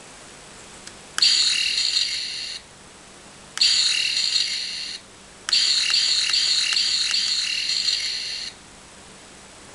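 Toy gun's electronic sound chip playing a high, warbling zap effect three times: two bursts of about a second and a half, then a longer one of about three seconds. The chip is a replacement sound-and-light board taken from a Crystal Gunber toy.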